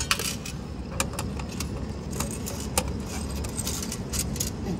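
Coin change clinking a few separate times, over a steady low rumble.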